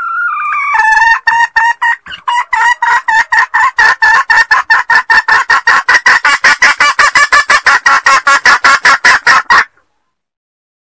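Junglefowl hen calling: a drawn-out note rising in pitch, then a long run of fast, even clucks, about six a second, that cuts off suddenly near the end. A recorded hen lure call, played to draw in wild junglefowl.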